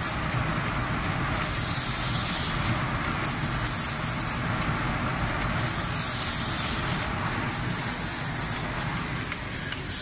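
Air-driven paint spray guns of an automatic spraying machine hissing in repeated bursts, each about a second long, over the machine's steady low running noise.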